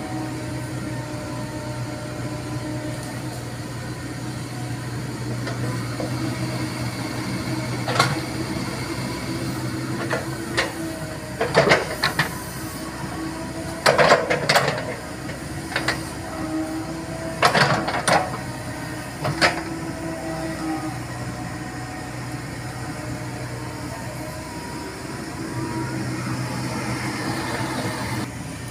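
Komatsu PC70 hydraulic excavator's diesel engine running steadily under digging load, with several sharp clanks and scrapes from the bucket working soil and roots in the trench, bunched in the middle of the stretch.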